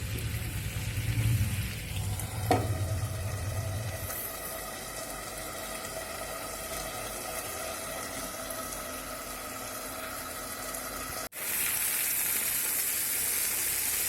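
Marinated chicken sticks sizzling in oil on a tawa over a low gas flame, a steady frying hiss with one short knock a couple of seconds in. After an abrupt break near the end the sizzle is louder and brighter.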